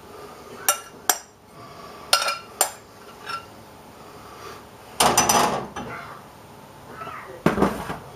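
A metal spoon clinking and scraping against a china serving platter while spreading minced chicken. Several short sharp clinks come in the first few seconds, then two louder, longer scrapes about five and seven and a half seconds in.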